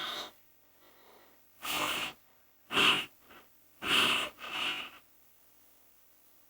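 A person's breath: five short, noisy huffs through the mouth or nose in about three seconds, with gaps of silence between them.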